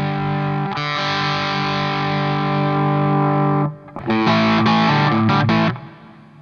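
Electric guitar with distortion played through a Fattoria Mendoza effects pedal: a chord struck about a second in rings out and is cut off, then, after a short gap, a quick choppy run of short chords that stops shortly before the end.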